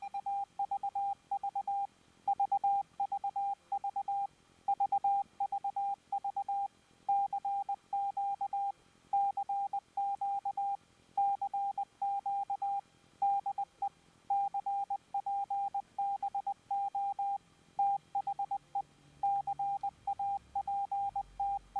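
Morse code sent as a steady mid-pitched tone, keyed on and off in dots and dashes in quick groups separated by short pauses.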